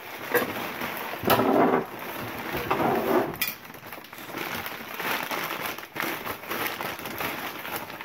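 Rustling and crinkling of paper and packing as items are handled and rummaged through in a tote, with a few sharp knocks; louder bursts of rustling about a second and a half in and again around three seconds.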